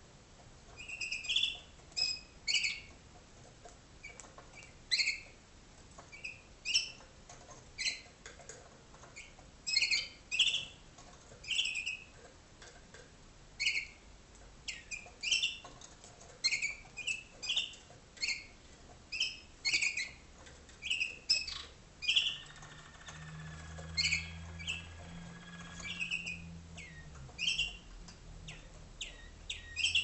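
Waterslager (malinois) canaries chirping in their cages: short, separate chirps one after another, about one or two a second. A faint low hum and a held note come in for a few seconds after the middle.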